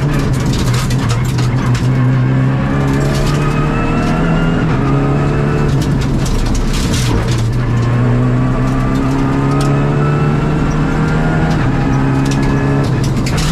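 Rally car engine heard from inside the cockpit at full stage pace, revving up through the gears: its pitch climbs several times and drops back at each shift. Scattered sharp cracks and clatter run over it.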